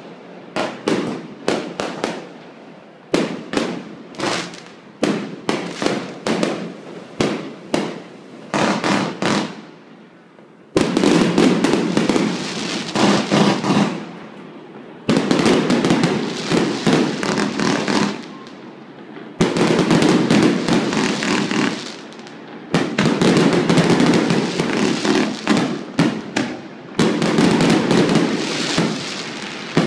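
Fireworks display: a string of separate sharp bangs, then dense rapid volleys of crackling bursts that come in several runs of about three seconds each, with short lulls between them.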